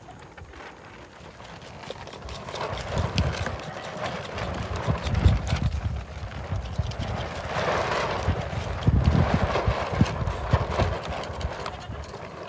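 A knife scraping singed hair and charred skin off a goat's head in repeated rough strokes.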